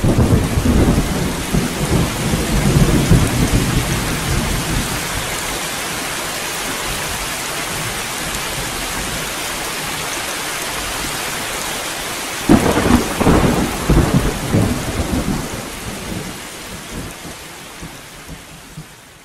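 Thunderstorm: rain falling steadily with a roll of thunder at the start and a second, sharper thunderclap about twelve seconds in that rumbles on for a few seconds, then the rain fades out near the end.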